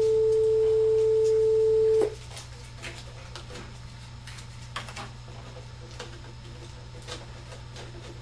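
A loud, steady pure tone held on one pitch, cutting off suddenly about two seconds in. After it come a few faint clicks and rustles from paper being torn and folded by hand.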